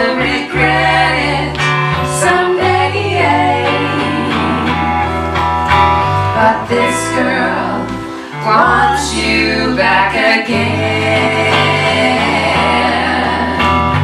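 Live performance of three women singing in close harmony over electric guitar accompaniment, with sustained low bass notes underneath.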